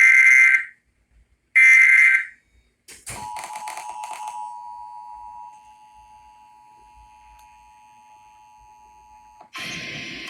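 Emergency Alert System SAME header: two loud, buzzy digital data bursts about a second long, a second apart. Then the EAS two-tone attention signal, a steady dual-pitched tone that starts with a second or so of rasping noise, drops to a quieter level partway through and cuts off after about six seconds. A voice begins near the end.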